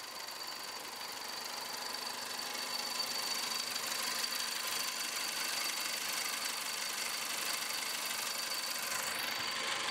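Mitsubishi Colt's 1.3-litre inline-four, 16-valve engine idling steadily with the hood open, with a thin, steady high whine over the running noise. It grows gradually louder over the first few seconds as the microphone nears the engine bay.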